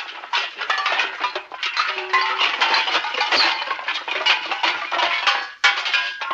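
A dense, continuous clatter of clinks and rattles, like dishes or metal objects jangling, with a brief dip and a fresh sharp hit near the end.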